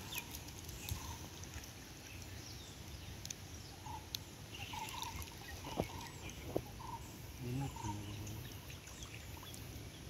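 Scattered faint bird calls, with two sharp clicks a little past the middle.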